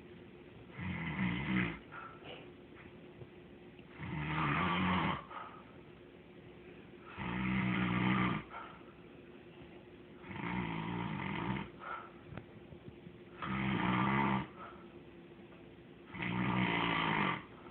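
Snoring: six loud snores, each about a second long, coming regularly about every three seconds.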